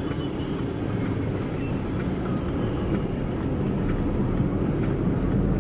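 Steady low rumble of a taxi's engine and road noise, heard from inside the cabin while the car moves slowly through dense city traffic.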